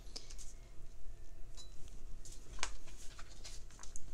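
Scattered light clicks and taps of pens and paper being handled on a desk.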